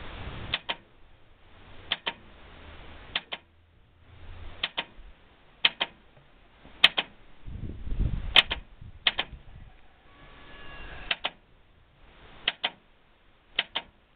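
Solenoid of a T-25 tractor's gear-reduction starter clicking: a quick double click about once a second, eleven times, with no sound of the engine being cranked. The starter is faulty.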